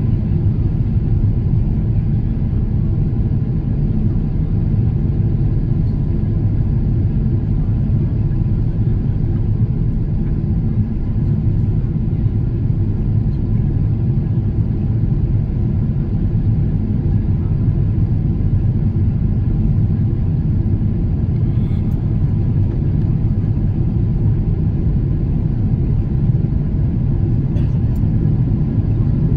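Jet airliner cabin noise heard from a window seat while the plane is low over the city on approach: a steady low rumble of engines and airflow with a faint even hum of tones in it.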